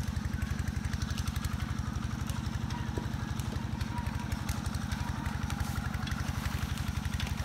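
A small engine running steadily, with an even, fast low pulse that does not change.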